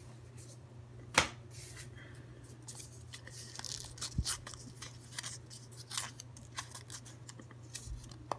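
Hands opening a folded white paper packet: the paper crinkles and tears in a run of small irregular crackles and ticks, after one sharp tap about a second in. A low steady hum runs underneath.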